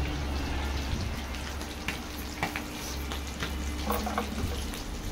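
Masala-coated fish pieces sizzling steadily as they shallow-fry in hot oil in a steel kadai, with a few light clicks about two seconds in.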